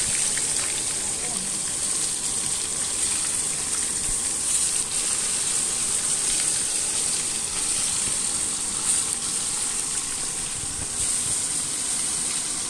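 Turmeric-coated fish pieces frying in hot oil in a wok, a steady high sizzle, with a few light clicks of the steel spatula.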